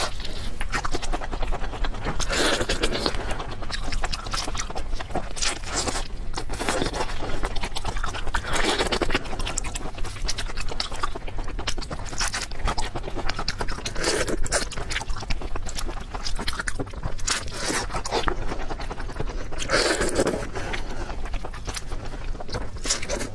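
Close-miked eating of shrimp and crab: a dense, continuous crackling and scraping of shells being broken and chewed, with louder surges every few seconds.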